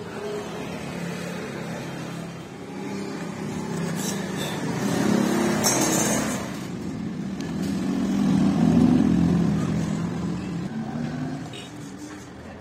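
A power tool's motor running steadily with a wavering hum, growing louder twice as the load changes.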